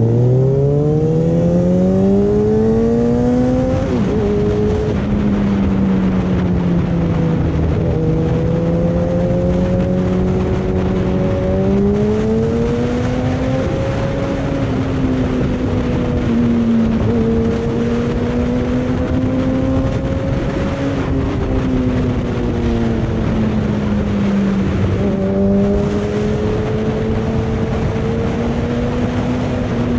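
Kawasaki ZX-6R inline-four engine heard from the rider's seat, revs climbing steeply in the first few seconds, then an upshift about four seconds in. After that it cruises, the pitch rising and falling gently with a few more brief shifts, under steady wind rush on the microphone.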